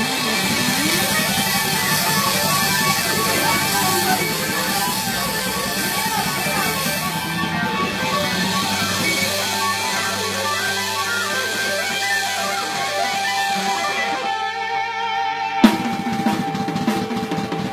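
Live band playing guitar and drum kit with Sabian cymbals. Late on the playing thins to held guitar notes, then a sharp drum hit and a few more strokes near the end.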